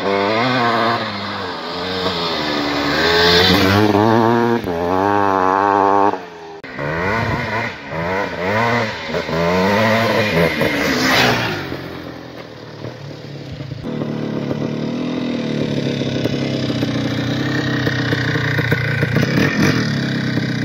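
1981 Yamaha YZ465's single-cylinder two-stroke engine revving up and down as the motocross bike is ridden, its note rising and falling through the gears. About eleven seconds in there is a loud rush of noise, and from about halfway on the engine holds a steadier, lower note.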